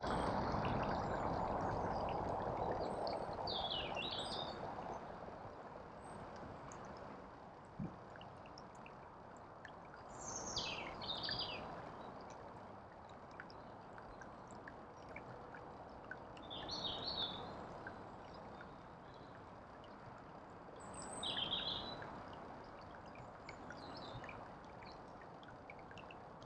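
A small songbird calls in short, high chirping phrases, five times spread a few seconds apart, over a faint rushing background. The rushing is stronger at first and fades over the first few seconds.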